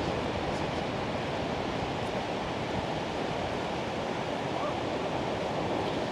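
Pacific Ocean surf washing onto the beach: a steady, continuous rush of breaking waves with no distinct single breakers standing out.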